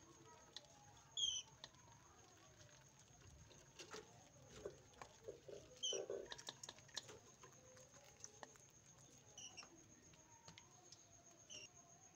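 Budgerigars giving four short, faint chirps with soft chatter between them, over scattered small taps and clicks.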